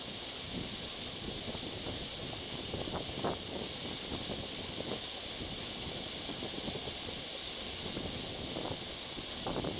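Steady hiss of a waterfall pouring onto rocks, with a few short louder moments.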